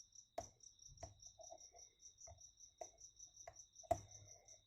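Small irregular clicks and taps of a pick and tension bar working the pins of a Best padlock, the sharpest about four seconds in. Behind them a cricket chirps steadily, about five chirps a second.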